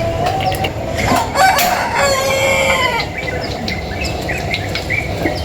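A rooster crowing once, a long call from about one to three seconds in, with small birds chirping throughout.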